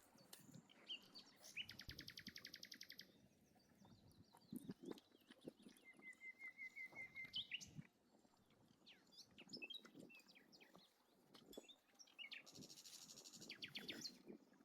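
Faint birdsong: several birds chirping and trilling. A fast buzzy trill comes about two seconds in and again near the end, with a short run of even, repeated notes in the middle. Soft low knocks sound here and there underneath.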